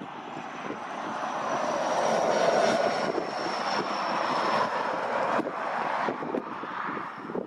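Boeing 777F's twin GE90 turbofan engines running as the freighter passes, a jet whine and rush that swells to a peak about two and a half seconds in and then slowly fades, the high whine dropping slightly in pitch. Wind buffets the microphone underneath.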